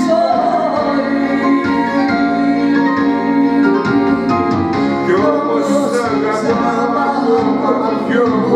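A man and a woman singing a Greek popular song into microphones over a backing track with sustained keyboard chords.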